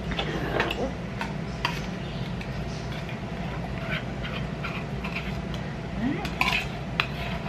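Condensed soup being emptied from a tin can into a mixing bowl, with scattered clinks and scrapes of a metal utensil working the soup out of the can, busiest near the end.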